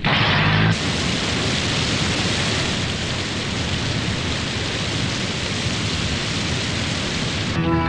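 Cartoon sound effect of a fire engine's water cannons blasting high-pressure jets: a steady, even hiss that stops abruptly near the end as music comes in. It opens with a short low rumble from the truck.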